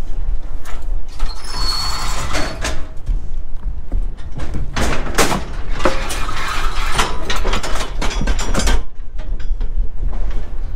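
Steel cattle chute and headgate rattling and clanging, with irregular metal knocks scattered through, over a steady low rumble.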